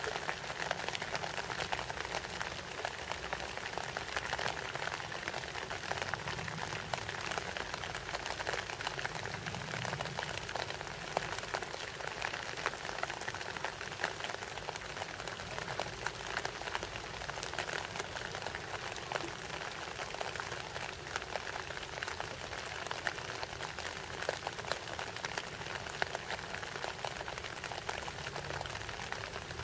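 Steady rain falling on leaves: an even hiss dotted with many small drop hits.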